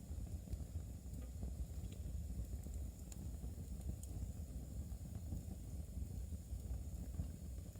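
Fire burning in a fireplace: a steady low rumble with a few faint, sharp ticks scattered through it.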